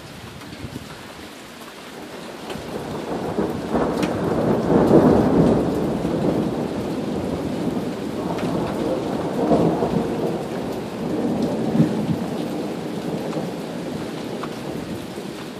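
A long rolling thunder rumble over steady rain: it builds from about two seconds in, is loudest a few seconds later, swells again twice, then slowly fades.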